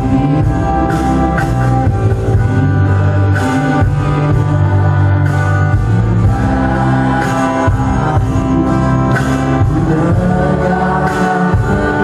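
Pop song with a man singing in Indonesian into a microphone over instrumental accompaniment, loud and continuous.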